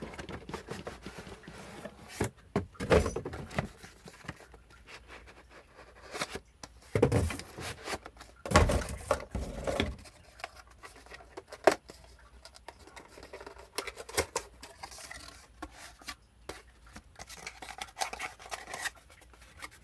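Packaging of a tower CPU cooler being opened and handled: irregular rustling, scraping and knocking, with a few louder bursts and a sharp click partway through.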